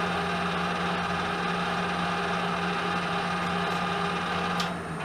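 Metalworking lathe running with a steady motor and gear hum while an 8.3 mm tapping drill in the tailstock chuck bores the centre of the part. Near the end there is a click and the motor note stops, as the lathe is switched off and starts to run down.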